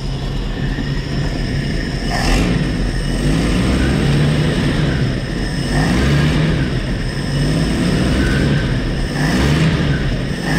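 Jeep CJ5's AMC 232 inline-six engine running warm and being revved by hand at the carburetor throttle a few times, its pitch rising and falling with each rev. The owner has found the new manifold's gasket leaking on the front side.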